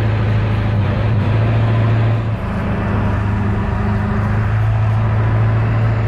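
Monster truck tour vehicle's engine running steadily as it drives along a dirt track, heard from the passenger bed as a loud, steady low drone; the engine note shifts slightly about two and a half seconds in.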